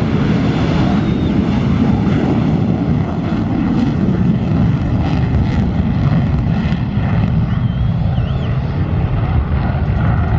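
Aircraft engine noise: a loud, steady, deep rumble from an aircraft in flight.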